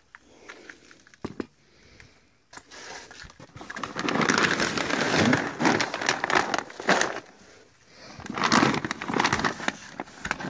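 Plastic wrapping and bags of dry dog food crinkling and rustling as they are handled and shifted inside a cardboard box. The sound is loud and dense from about four seconds in, with a short lull near eight seconds.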